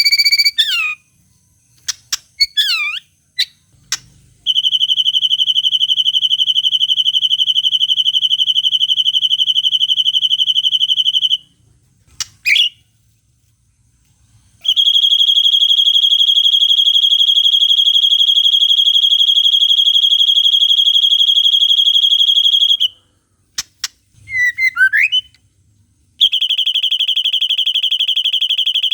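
Songbird trills of the cililin type: three long, even, high-pitched trills, each held for several seconds without a break, with short swooping whistled notes in the gaps between them.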